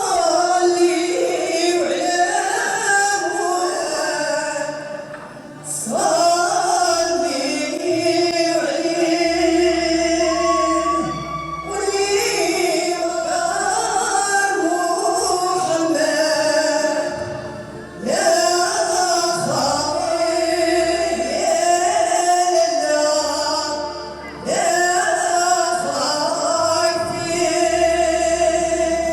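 Music with singing, male and female voices, the melody coming in phrases of about six seconds each with a short dip between them.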